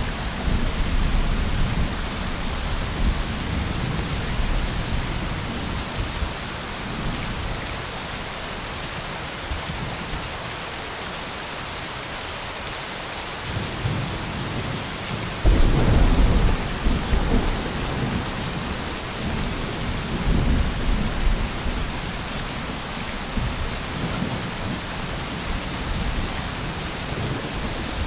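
Thunderstorm: steady rain with rolling thunder. A rumble dies away over the first several seconds, and after a lull a sudden loud thunderclap about fifteen seconds in rumbles on to near the end.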